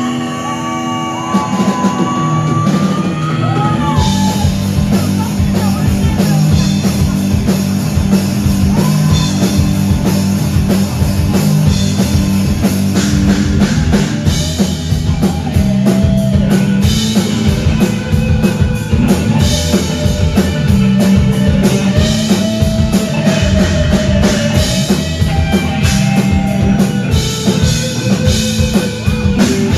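Live rock band playing with electric guitar and drum kit. It opens with a lead line sliding in pitch, and about four seconds in the full band comes in with heavy drums and cymbals.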